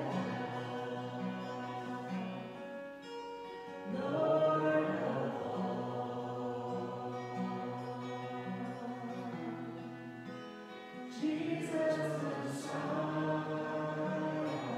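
Contemporary worship song: singing over instrumental accompaniment with a steady pulsing bass line, swelling into new phrases about four seconds in and again near eleven seconds.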